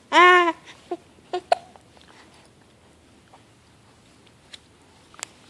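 Baby gives one short whimpering cry at the start, its pitch arching up and then down, followed by a few faint hiccups about a second in.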